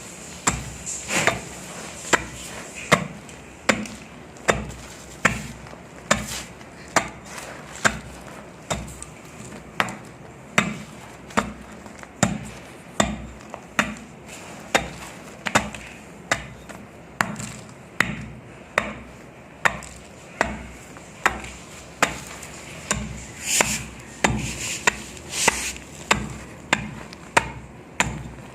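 Dry sand clumps crumbling, a crisp, dusty crunch repeated steadily about once every three-quarters of a second.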